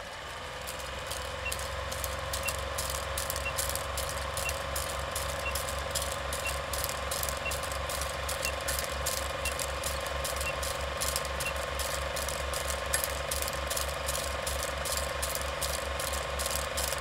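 Film projector running: a rapid, even mechanical clatter over a pulsing low hum. Faint short high beeps come about once a second during the first ten seconds.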